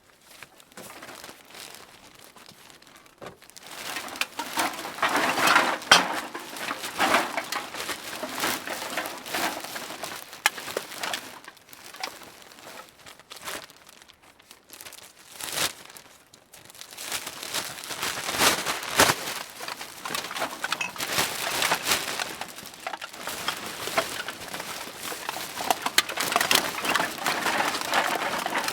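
Cans being put into a bag: the bag crinkles and rustles while the cans knock together in irregular clatters, in bouts broken by short lulls.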